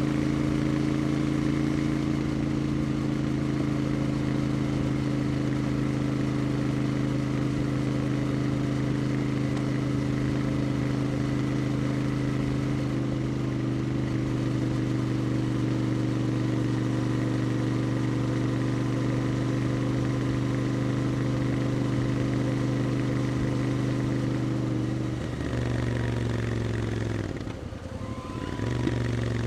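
Royal Enfield Interceptor 650's parallel-twin engine running at steady cruising revs. About 25 s in, the revs drop as the bike slows, the sound dips briefly, and then the engine pulls again near the end.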